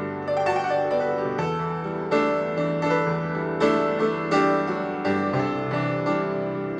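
Background music: a piano playing a slow piece with notes struck about every half second to second over held bass notes.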